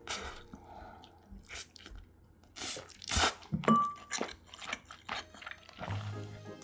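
A person chewing a mouthful of food close to the microphone: mouth clicks and smacks in irregular bursts, loudest around the middle.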